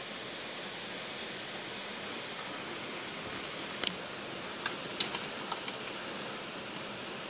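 Steady hiss heard from inside a car, with a few sharp ticks about four to five and a half seconds in.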